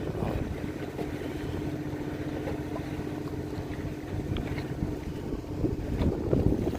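Fishing boat's machinery running steadily on deck: a low rumble with a constant hum, with a few faint knocks.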